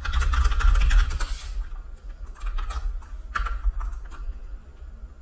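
Computer keyboard typing: a quick run of keystrokes for about a second and a half, then a few scattered single clicks, over a steady low hum.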